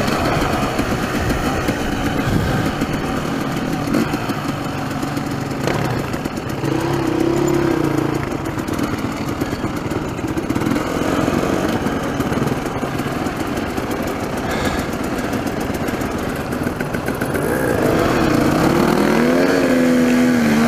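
Dirt bike engine running while riding a rough trail, its pitch rising and falling with the throttle and climbing again near the end. Occasional knocks from the bike going over rocks.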